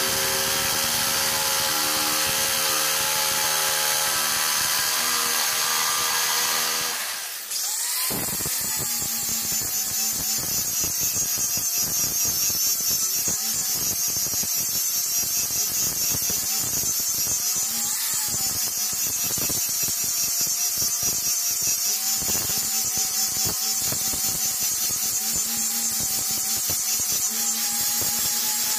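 Electric jigsaw cutting through the wooden blade of a cricket bat, a steady buzz that stops about seven seconds in. Then an angle grinder with an abrasive disc grinds and shapes the wood, a high whine that wavers in pitch.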